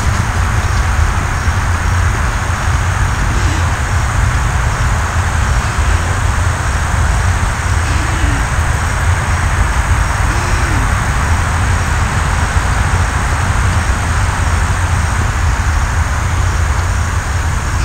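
Steady rushing noise with a deep low rumble underneath, unchanging throughout.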